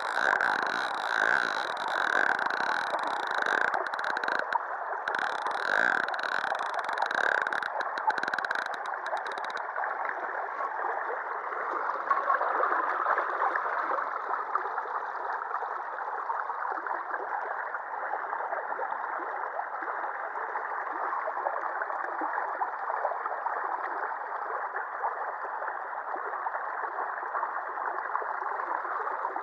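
Shallow river water flowing and gurgling close to the microphone, a steady rushing. For about the first nine seconds a faint tone also pulses about once every 0.8 seconds.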